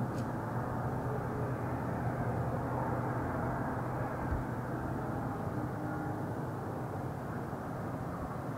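Steady low rumble of distant engine noise, easing slightly near the end, with one dull low thump about four seconds in.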